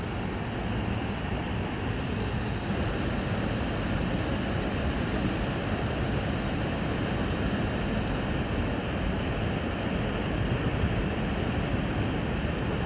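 Steady rushing of water pouring over a small waterfall.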